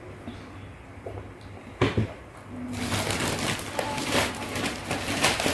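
Two quick knocks, like a plastic cup set down on a wooden table, then a plastic bag crinkling and rustling continuously as a gloved hand handles it.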